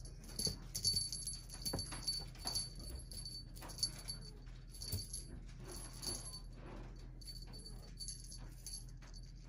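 Small jingle bell on a wand cat toy jingling in short shakes, again and again, as a kitten bats at it, with a few soft knocks of the toy and paws on the cloth.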